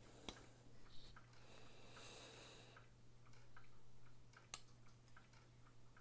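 Near silence with a few faint clicks and a soft rubbing from a CRKT Seismic folding knife being handled and its blade folded. A steady low hum sits underneath.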